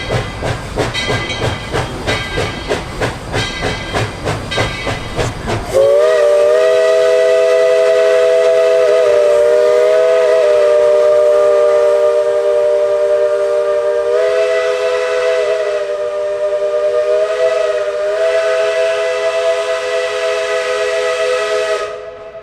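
Steam locomotive working with a rhythmic chuff and hiss, then, about six seconds in, sounding its whistle. The whistle is a chord of several notes, held in one long blast of about sixteen seconds with slight wavers, and it cuts off near the end.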